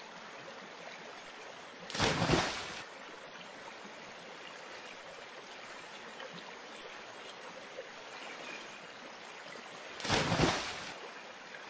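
Faint, steady flowing-river water sound, with two splashes of a cast net landing in the water: one about two seconds in and one near the end.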